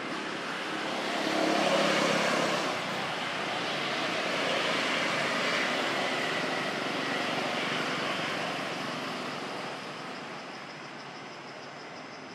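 Engine noise from a passing motor vehicle. It swells loudest about two seconds in, stays up, then fades over the last few seconds.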